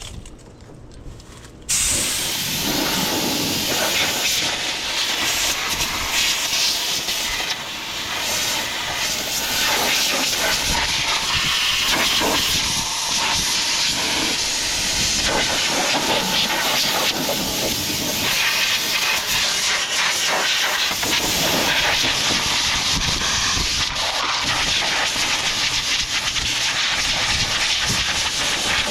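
Compressed air hissing from a blow gun as it blasts dust and dirt off a combine corn head. It starts suddenly about two seconds in and keeps going with small surges.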